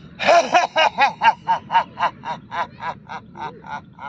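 A man's voiced roaring breaths in the lion pose (simhasana), tongue out: a rapid, even string of forceful 'ha' pulses at about four a second, loudest at the start and gradually weakening.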